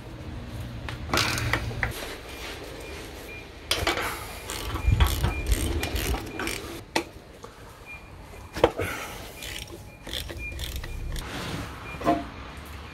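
Socket ratchet clicking in short irregular runs, with a few louder metal knocks, as the nuts of a rusty exhaust manifold are worked loose.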